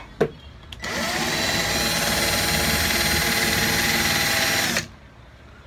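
A Ryobi 12-volt cordless drill driver drills into a wooden board. Its motor spins up over the first moment, runs at a steady whine for about four seconds, then stops.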